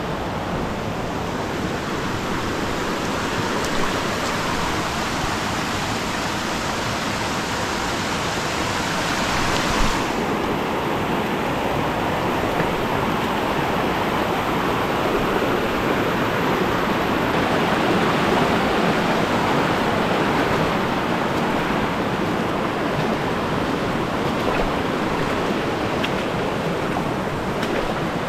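Steady rush of flowing water from a mountain creek. About ten seconds in, the hiss abruptly loses its top end.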